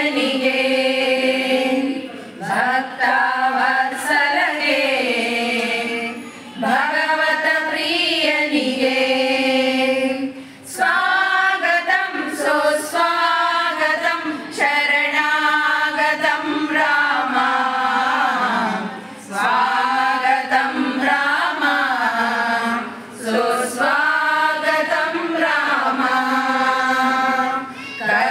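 A group of women singing a devotional bhajan together, unaccompanied, in sung phrases a few seconds long with brief breaks for breath between them.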